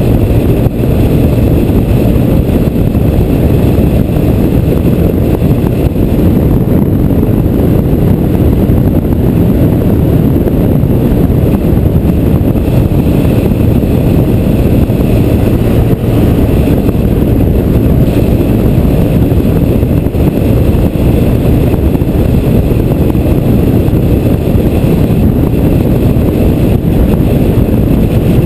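Motorcycle cruising at steady speed on the open road: constant wind rush over the mounted camera's microphone with the engine running underneath, loud and even throughout.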